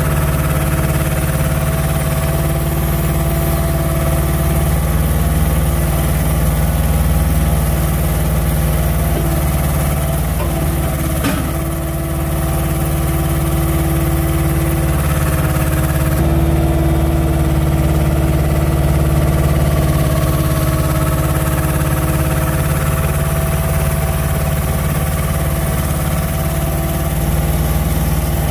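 Diesel engine of a crane truck running steadily to power the crane hydraulics, with a steady whine over it that shifts slightly partway through. A single sharp click about eleven seconds in.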